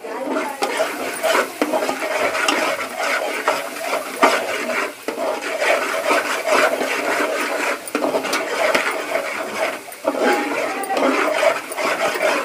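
Metal ladle stirring and scraping a thick onion, turmeric and chilli masala frying in oil in a metal pot: a continuous sizzle broken by frequent scrapes and clicks of the ladle against the pot.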